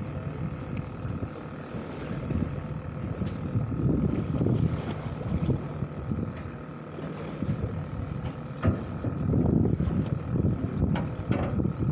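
Wind buffeting the microphone aboard a fishing boat, as an uneven low rumble over a faint steady hum, with a few sharp knocks near the end.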